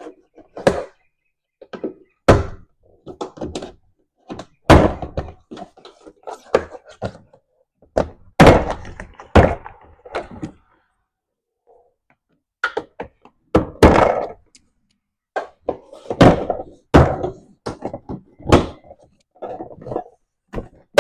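Plastic retaining clips of a Toyota 4Runner's door panel popping loose as a trim puller pries the panel off the door: a string of irregular sharp pops and thunks, some in quick pairs, with a short pause about halfway through.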